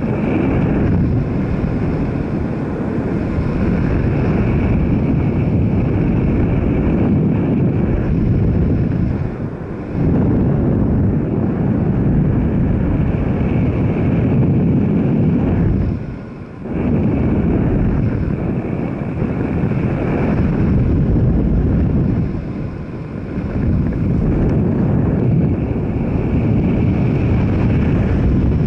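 Steady rush of wind over the microphone of a moving vehicle, with its running noise beneath. It eases off briefly three times, most sharply about halfway through.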